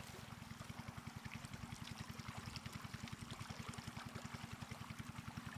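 Shallow muddy floodwater rushing through grass: a steady hiss with small splashes and bubbling, over a fast, even low throb.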